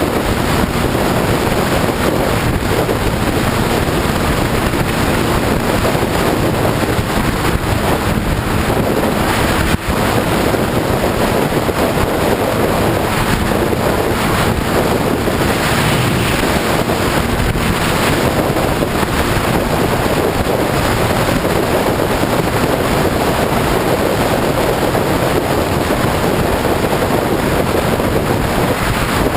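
Steady wind rush on the microphone of a camera on a sport motorcycle moving at road speed, with the bike's engine running beneath it.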